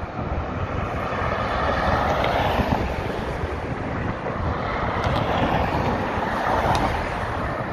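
City street traffic with wind on the microphone: a steady rushing noise that swells twice, about two seconds in and again near the end.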